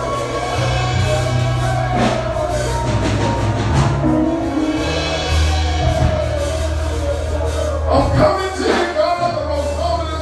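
Slow gospel worship music: held keyboard bass notes that change every few seconds under sustained chords, with singing voices over them.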